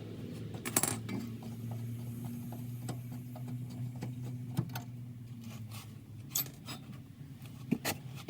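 Hand tools on the rear brake caliper bolts: irregular metallic clicks and clinks, the loudest about a second in and again near the end, over a steady low hum.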